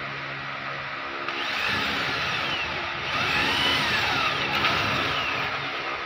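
Handheld electric drill boring into a metal frame. It runs with a steady hum, then about a second in the bit bites and the sound grows louder and rougher, with rising and falling whines, and eases back to the steady hum near the end.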